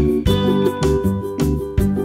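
Background music: a plucked-string tune with a steady beat and a bass line.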